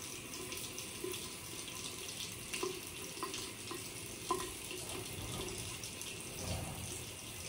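Water running steadily from a tap into a bathroom sink, with a few faint clicks between about two and four and a half seconds in.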